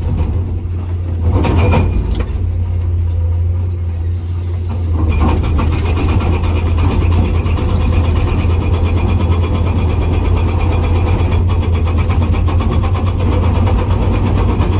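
Komatsu PC200 excavator's diesel engine running with a steady low drone. About five seconds in, its hydraulic rock breaker starts hammering in a rapid, even rhythm that continues to the end.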